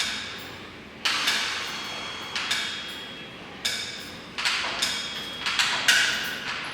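Elliptical machine knocking with each stride, a repeated clank about once a second that comes quicker later on as the pace picks up.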